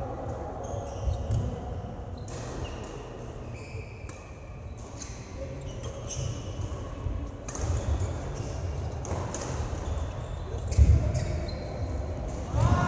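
Match play on a court: a ball's dull thuds now and then, the loudest about eleven seconds in, with short high squeaks and players' distant voices.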